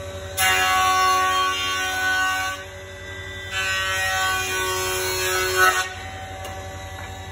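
Jointer planer running steadily with a humming motor, then loud cutting as a board is pushed over the cutterhead knives. The cutting comes in two stretches with a break of about a second between them, as the knives catch the two ends of the concave, cupped board, and stops abruptly a little before the end.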